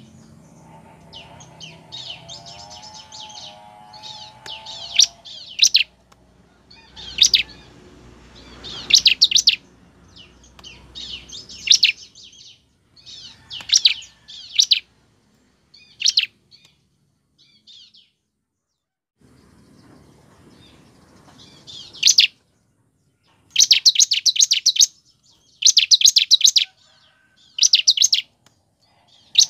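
Bar-winged prinia (ciblek) singing: short bursts of rapid, high chirping trills, each a second or less, separated by pauses. There is a quiet stretch in the middle, and the bursts come thicker near the end.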